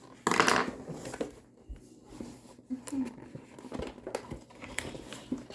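Toy packaging being handled: a short rustle of plastic and card about a quarter second in, then scattered light clicks and taps.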